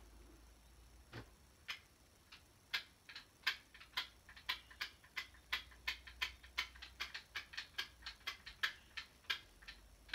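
A run of sharp, irregular clicks and taps, a few each second, starting about a second in.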